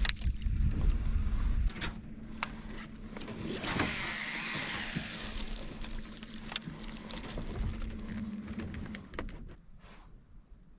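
Electric trolling motor humming steadily and cutting off about nine seconds in, with scattered clicks and a stretch of hiss partway through.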